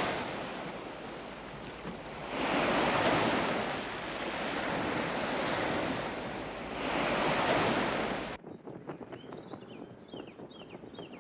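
Anime soundtrack ambience of rushing wind and surf, swelling and fading in long surges every few seconds. About eight seconds in it cuts abruptly to a quieter scene with a few short high chirps.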